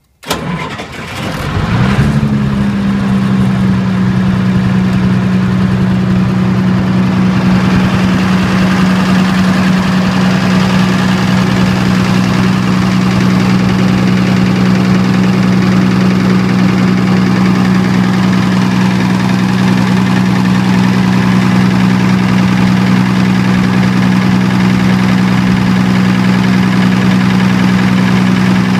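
Diesel generator engine starting up, with a sharp onset and a rise in pitch over about two seconds before settling into a steady, even run. It is running in dual-fuel mode on diesel with natural gas injected.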